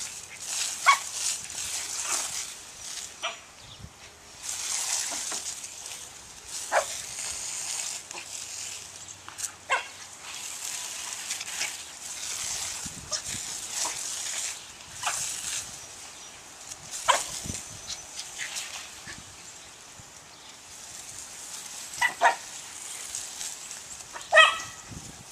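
Jack Russell terrier giving short, sharp barks now and then as it snaps at a garden hose's water jet, a quick pair near the end. Between the barks, the spray hisses on and off.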